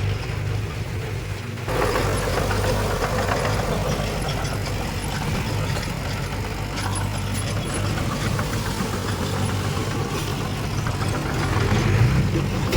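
Heavy diesel engine of earthmoving machinery running steadily with a deep hum; the sound shifts abruptly about two seconds in.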